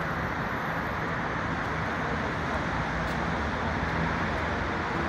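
Steady road traffic noise from a city street, with a low engine hum that comes and goes.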